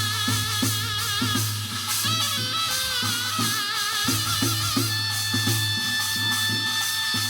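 Korean shamanic ritual (gut) music: a wind instrument plays a held melody with wavering vibrato over drum strokes about two to three times a second, with a steady low hum beneath.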